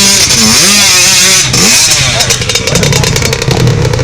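ATV engine revving up and down several times, then settling to a steadier, lower running about halfway through.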